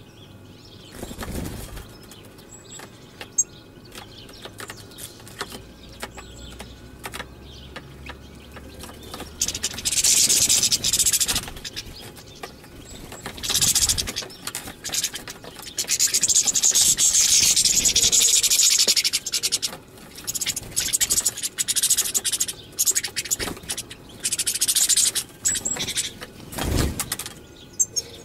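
European goldfinch singing: several long bouts of rapid, high twittering, the longest lasting a few seconds, with short chirps in between.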